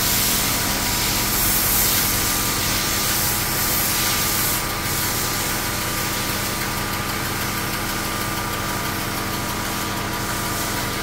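Pressure washer running steadily: a constant hum from its motor and pump under a hiss of spraying water, easing slightly about halfway through.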